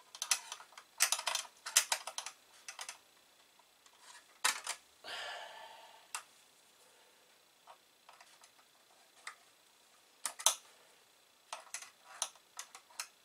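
Small metal clicks and taps of a 7 mm wrench working the nut that holds a ground wire to the metal case of an Amiga 2000 power supply, coming in small clusters, with a brief scraping sound about five seconds in.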